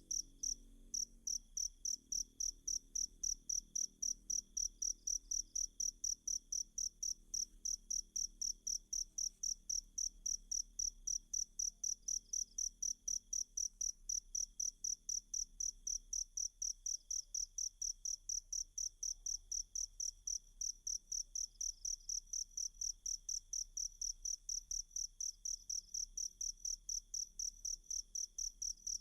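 Cricket chirping in a steady, evenly spaced rhythm of high-pitched chirps, with a fainter continuous high tone underneath.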